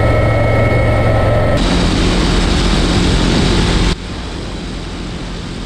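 Steady helicopter cockpit noise: a loud low hum with a few high whining tones from the turbines and transmission. About a second and a half in it cuts to a different steady aircraft noise, and at about four seconds drops to a quieter, even rushing noise.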